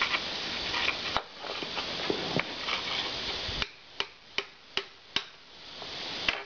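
A screwdriver prying and scraping at a small piece of wood glued onto a ceramic tile, testing how well the glue holds. It makes a run of sharp clicks and knocks, and near the end four separate clicks come about half a second apart.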